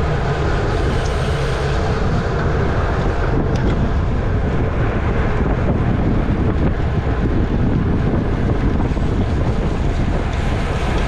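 Steady wind rumble buffeting the microphone of a bicycle rider's camera at race speed.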